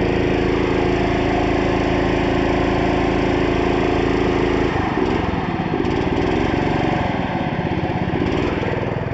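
Small stationary engine running steadily up close while it drives an artisanal dredge pump. Its note wavers for a few seconds in the second half.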